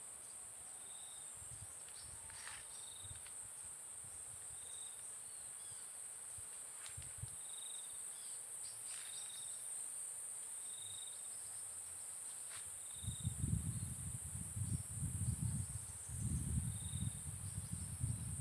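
Steady high-pitched drone of insects, with a short high chirp repeating about once a second. From about 13 seconds in, low rumbling thumps come and go and are the loudest sound.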